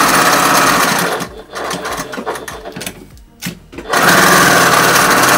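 Electric sewing machine stitching fabric in two runs, stopping about a second in and starting again about four seconds in, with a few small clicks in the pause between.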